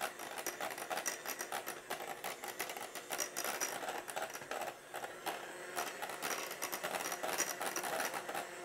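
Electric hand mixer running, its beaters whipping heavy cream in a stainless steel bowl and clicking against the bowl over and over. The cream is being whipped a few seconds more toward stiffer peaks.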